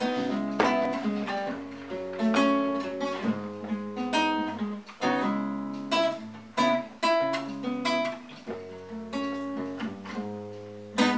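Acoustic nylon-string classical guitar playing a solo intro: chords played about once or twice a second, each left to ring and fade before the next.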